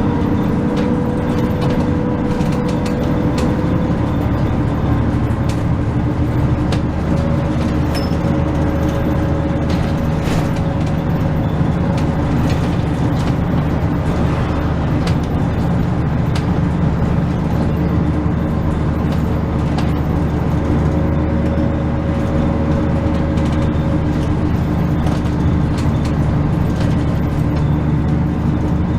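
Kyoto Bus route bus heard from inside the cabin while under way: a steady diesel engine hum over road rumble, with occasional light rattles.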